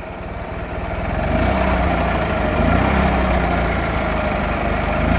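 Ural sidecar motorcycle's air-cooled flat-twin engine idling with a few short blips of the throttle. It fades in over the first second or so.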